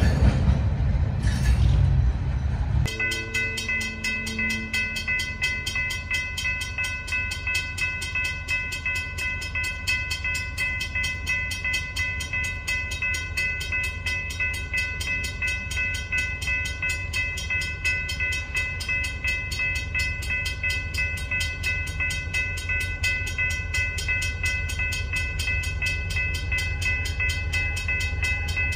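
For the first three seconds, the loud low rumble of freight cars rolling along the track, cut off suddenly. Then a railroad grade-crossing bell rings rapidly and evenly, with a steady ringing tone, over the low rumble of an approaching train.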